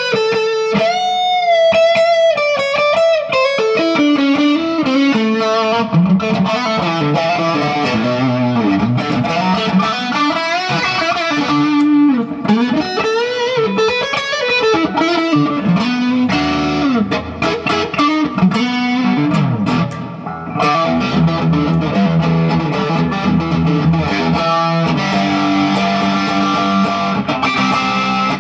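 Gibson Les Paul electric guitar played through an amp with a hard-rock tone: single-note lead lines full of string bends and vibrato, settling into held chords and riffs about two-thirds of the way through.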